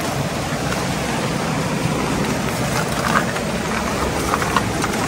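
Open water of the partly frozen Zanskar River rushing past in a steady, loud torrent, with a few faint crunches of rubber boots stepping on ice.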